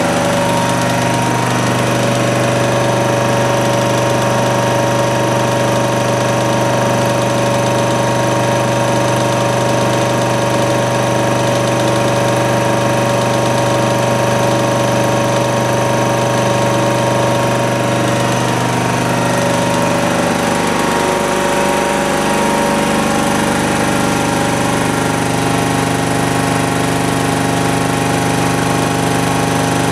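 Hatlapa L20 electric-motor-driven piston air compressor running steadily, pumping air into its receiver. Its tone shifts about twenty seconds in.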